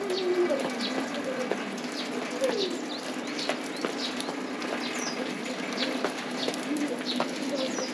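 Several birds calling: frequent short high chirps, with a few lower drawn-out notes, one of them falling in pitch.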